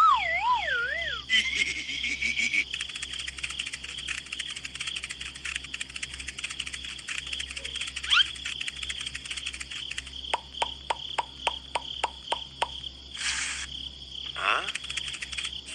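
Steady, dense high-pitched chirring with rapid ticking, a nature ambience of insects. A warbling tone falls away at the start, and about nine quick chirps come two-thirds of the way in, followed by a short hiss and a falling glide.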